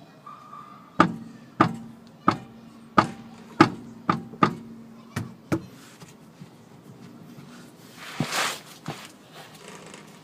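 Sharp metallic knocks, about nine in under five seconds, from a GAZ-3102 Volga's front suspension as it is worked to find a knock suspected in the king pins. A short scraping rustle follows about eight seconds in.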